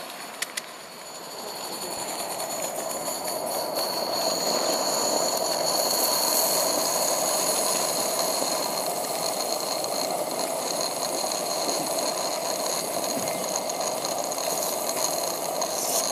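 Live-steam garden-scale 4-4-0 model locomotive running along the track, growing louder over the first few seconds as it comes close, then running steadily, with a steady high-pitched tone over the running noise.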